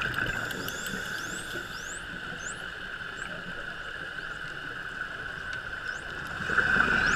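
Bottlenose dolphins whistling underwater: a string of short, rising whistles, with a few sharp clicks near the start, over a steady underwater hum.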